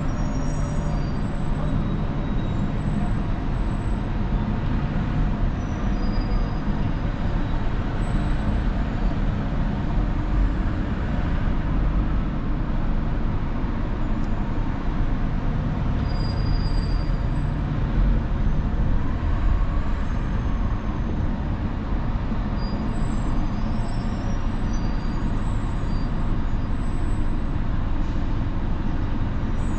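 Steady traffic and road noise of a car driving through city streets.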